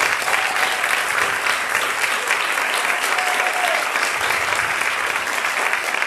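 Audience applauding: many people clapping steadily in a large auditorium.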